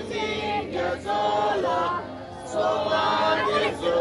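Voices singing together, with long held notes that slide between pitches.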